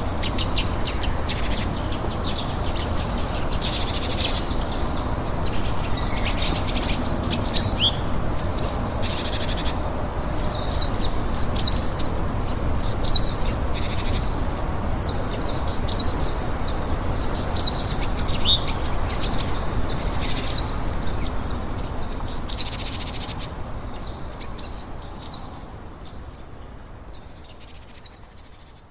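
Songbirds singing and chirping in many short calls over a steady hiss of rain, all fading out over the last few seconds.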